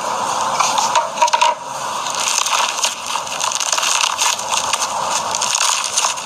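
Crunchy slime being squeezed and worked, giving a dense, continuous run of crackling and small pops, with a few louder pops about a second in.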